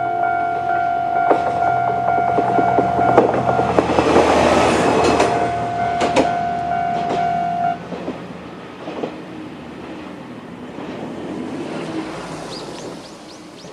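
An Isumi Railway Isumi 350-type diesel railcar passes over the level crossing, its engine humming low and its wheels clicking over the rail joints, loudest about four to five seconds in. The crossing's electronic warning bell rings steadily over it and cuts off suddenly about eight seconds in, while the train fades away.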